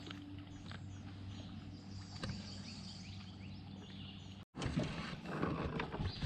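Small birds chirping over a faint steady low hum, in open-air ambience. About four and a half seconds in the sound cuts off abruptly and gives way to louder rustling and knocks.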